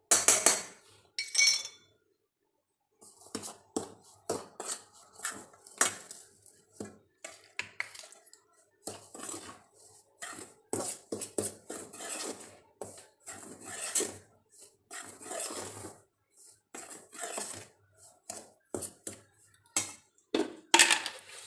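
Steel spoon scraping and clinking against a stainless-steel bowl as dry flour is stirred together, in irregular strokes; the sharpest clinks come near the start and near the end.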